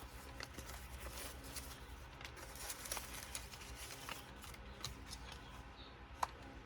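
Faint rustling and small clicks of paper items being handled, with one sharper click about six seconds in.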